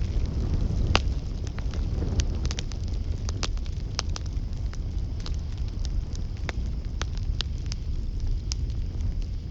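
Campfire crackling: irregular sharp pops and snaps over a low steady rumble, with the loudest pop about a second in.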